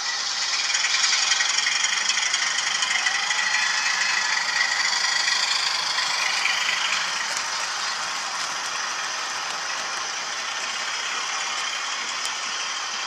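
OO gauge model train running on Hornby track, its wheels rattling and clattering over the rails and points. Loudest as it passes in the first half, then settling to a steadier, slightly quieter rattle.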